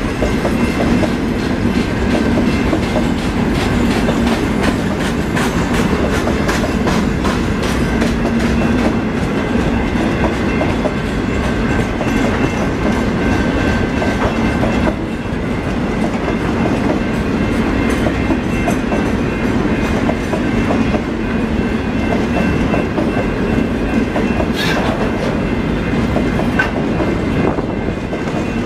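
Freight wagons of a long steel train rolling past, a steady loud rumble with wheels clicking rhythmically over the rail joints.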